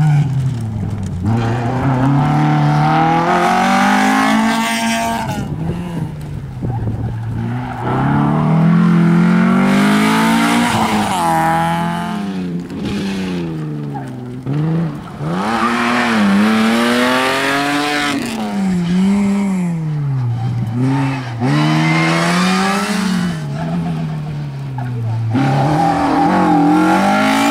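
Rally cars coming past one after another at full throttle, among them a Mk1 VW Golf and a Mk2 Ford Escort. Each engine climbs in pitch, drops sharply at each gear change, and climbs again.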